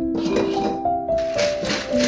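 Background music: a melody of held notes that step from one pitch to the next, over a light, regular percussion beat.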